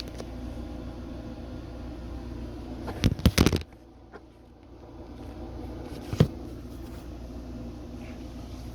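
Steady low hum with a quick cluster of knocks and clicks about three seconds in. The hum cuts out for a second or so after the knocks and then returns. One more single knock comes near the six-second mark.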